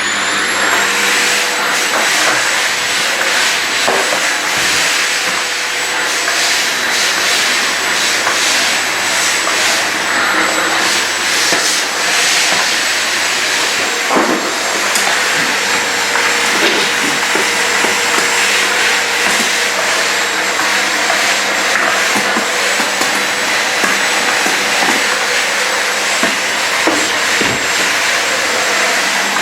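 AEG VX4 850-watt bagged canister vacuum cleaner running at half power on a smooth hard floor: a steady motor whine with high steady tones, its pitch rising briefly in the first second as the motor comes up to speed. A few light knocks sound over it.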